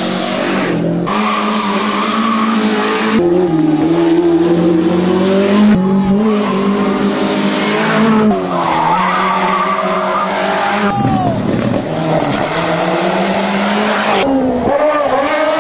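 Hill-climb race car's engine at high revs, accelerating hard. Its note climbs and breaks off every two to three seconds.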